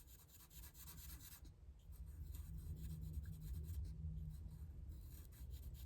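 Marker pen scratching on paper in quick, rapid back-and-forth strokes as shapes on a sheet are coloured in; faint.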